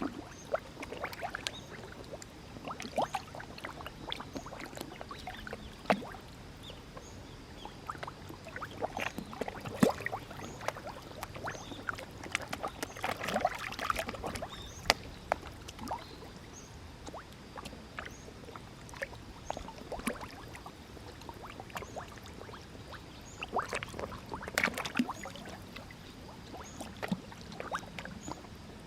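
Many koi feeding at the water surface: irregular small splashes, slurps and mouth clicks as they take floating food, thicker in a couple of bursts.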